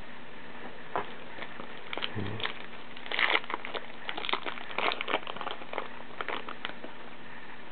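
Foil wrapper of a baseball card pack crinkling and tearing as it is opened by hand, a quick run of crackles that starts about three seconds in, is loudest at first, and dies out a second before the end.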